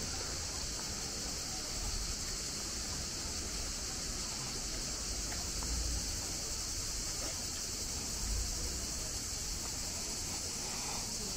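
Cicadas singing in a steady, unbroken high-pitched chorus, with a low rumble underneath.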